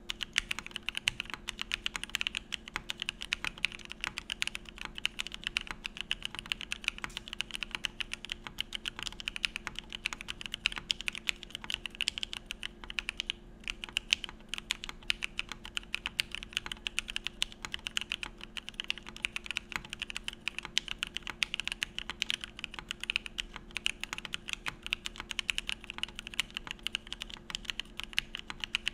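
Continuous fast typing on a Geonworks Frog mechanical keyboard with lubed 43 Studio Opblack linear switches on an aluminium plate and CRP R4 keycaps: a dense stream of keystrokes, with a brief pause about thirteen seconds in.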